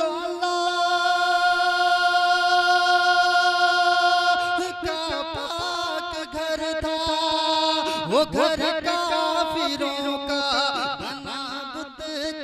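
A man singing a naat solo. He holds one long steady note for about four seconds, then sings wavering, ornamented runs that swoop up and down in pitch.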